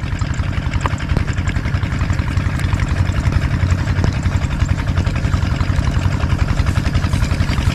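A small engine running steadily at an even idle-like pace, with a fast, regular pulsing and a strong low hum.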